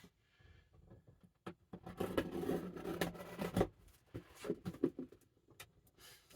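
Rustling and tearing of a mail package being opened, with scattered clicks and taps and a denser stretch of rustling in the middle.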